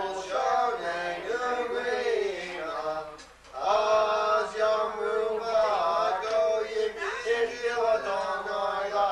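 A man's voice chanting a Passover Haggadah text, a continuous sung recitation with a short break about three seconds in.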